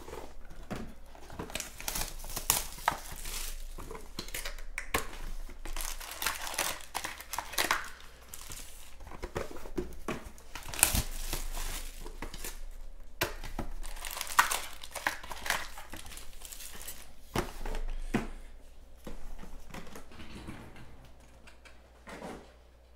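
Foil-wrapped Panini Chronicles card packs crinkling and cardboard boxes being handled, with short tearing sounds and light knocks as packs are taken out and stacked. It dies down in the last couple of seconds.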